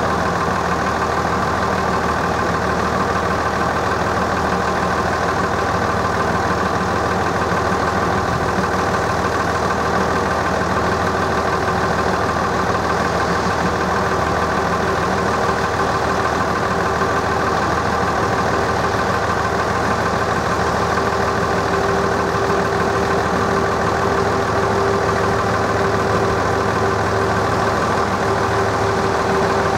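Level crossing warning bell ringing continuously while the crossing is closed.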